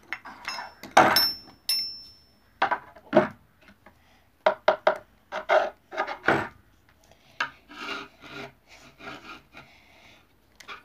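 A hand tool scraping and gouging at a thin wooden board in a run of short strokes. There is a ringing clink about a second in, and the strokes come quicker and more evenly near the end.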